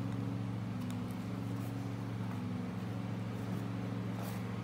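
A steady low machine hum made of several fixed tones, with a few faint light clicks.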